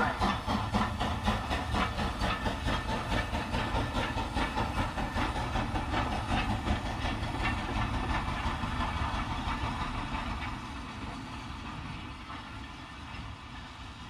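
Recording of a steam locomotive chuffing, played through a Toyota Prius's factory-standard speakers from an entry-level Kenwood car navigation unit, heard inside the car's cabin. A steady rhythm of chuffs with steam hiss, growing quieter over the last few seconds.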